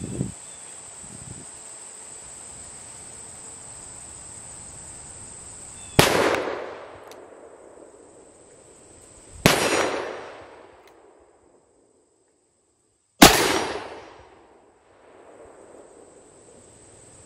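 Three shots from a Smith & Wesson Model 500 revolver in .500 S&W Magnum, fired about three and a half seconds apart, each with a long echoing tail.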